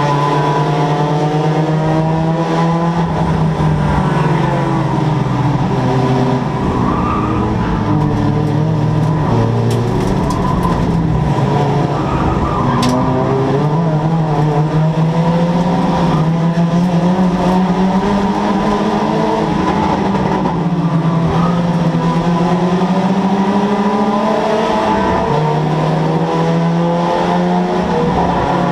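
Race car engine heard from inside the cockpit, pulling hard with its pitch climbing under acceleration, then dropping back at each gear change or lift off the throttle, several times over.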